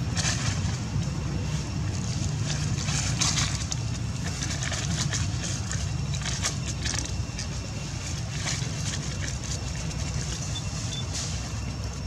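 Outdoor ambience: a steady low rumble, with scattered short dry crackles and rustles of dead leaves.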